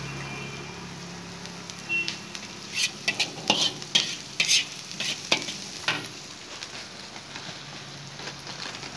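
Chicken, onion, chilli and garlic sizzling in a large black wok on a gas burner. A metal spatula scrapes and clinks against the pan in a flurry of strokes between about two and six seconds in, after which only the steady sizzle goes on.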